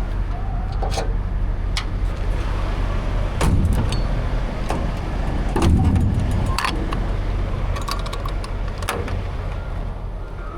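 A vehicle engine idling with a steady low hum, under scattered metallic clicks and rattles, with two heavier thumps about three and a half and six seconds in.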